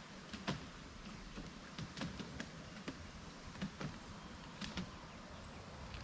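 Bamboo river raft drifting on the water: faint water lapping and trickling, with irregular small knocks and drip-like clicks.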